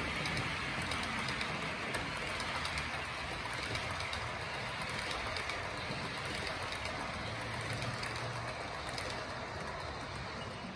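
Roco model trains running on a layout: a steady whirr and rattle of small wheels and motors on the track, with faint light clicking.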